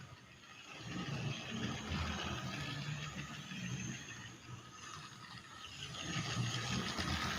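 Battery-powered toy Thomas train's small motor whirring as it runs along its plastic track, with a light rattle of wheels and track, louder and quieter by turns.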